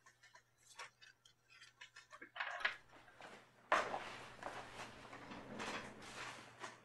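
Small handling sounds: light clicks and knocks of objects being moved, then from a sudden knock about four seconds in, a longer noisy rubbing sound that swells and fades several times.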